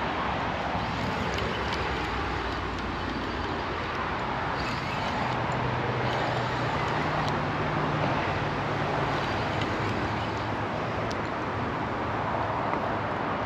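Steady roar of highway traffic, with a low hum standing out for a few seconds in the middle.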